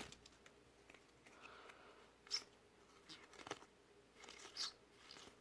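Faint, scattered rustles and light taps of trading cards and foil booster-pack wrappers being handled, three short sounds standing out against near silence.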